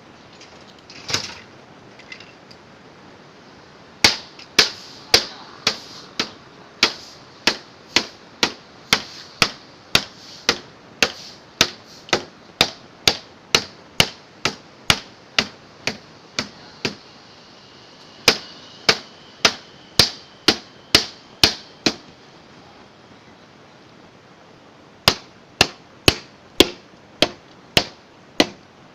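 Hammer blows on a refrigerator being smashed apart for scrap: a steady series of sharp metallic strikes, about two a second, that pause for a few seconds and then resume.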